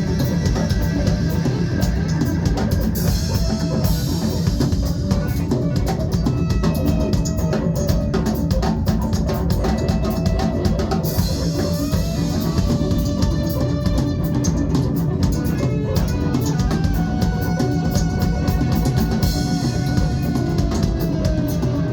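Live band music: a drum kit with bass drum pounding out a steady beat under guitar and held pitched notes, loud and continuous.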